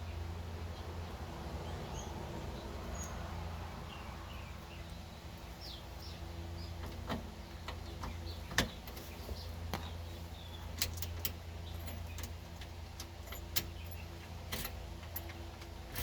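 Scattered light clicks and taps of hand work on parts, coming more often toward the end, over a steady low hum, with faint bird chirps in the first few seconds.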